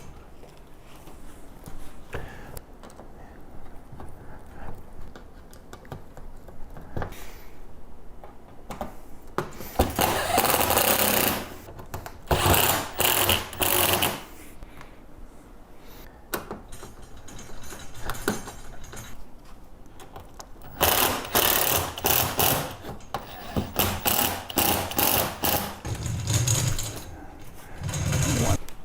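Power drill/driver running in short bursts, driving fasteners into the compost tumbler's panels, with quieter handling noise between. The first few seconds hold only light handling; the longest run of bursts comes in the second half.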